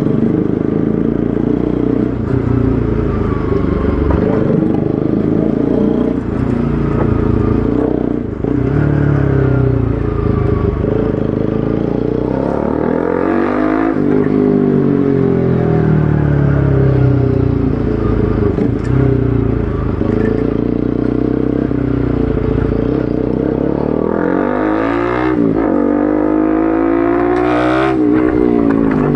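Bajaj Pulsar RS200's single-cylinder engine on the move through an Akrapovic aftermarket exhaust, the revs climbing and dropping again and again as it shifts through the gears. Several hard accelerations, the sharpest near the end.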